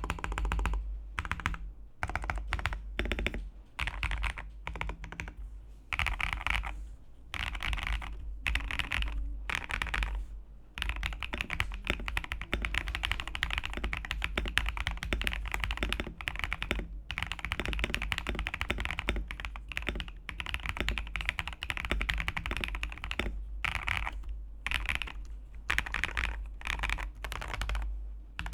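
Mechanical keyboard with Aniya switches being typed on quickly, a dense run of key clicks. It comes in short bursts with brief pauses at first, then runs on almost without a break from about eleven seconds in, over a faint steady low hum.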